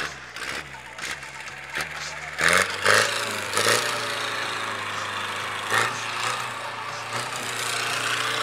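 Open-top off-road jeep's engine revving in a few loud surges about two and a half to four seconds in as it drives across the dirt course, then running steadily under load, with crowd voices behind.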